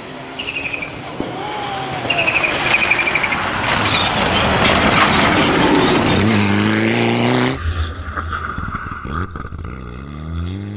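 Mitsubishi Lancer Evo IX rally car's turbocharged four-cylinder engine at full throttle as the car passes close by, engine tones climbing to a loud peak. The sound cuts off abruptly about three quarters of the way in, then the engine is heard accelerating again, revs rising near the end.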